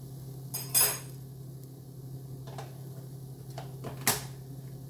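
Kitchen utensils and dishes being handled: a ringing metallic clink about half a second in, a few light knocks, and a sharp clack near the end, over a steady low hum.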